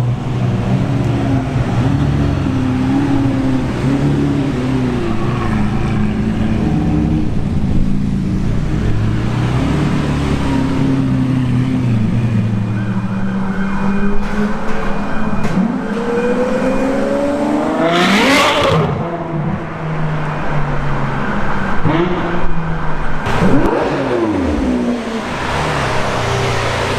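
Sports car engines running and revving. About eighteen seconds in, a car passes at speed, its engine note climbing and then dropping away. A second, similar pass comes a few seconds later.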